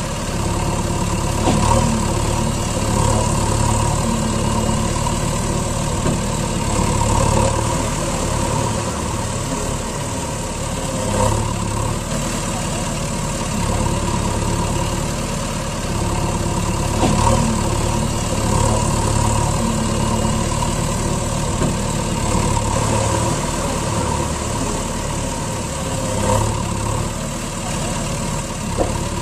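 An engine running steadily, its level swelling and easing, with a few brief knocks.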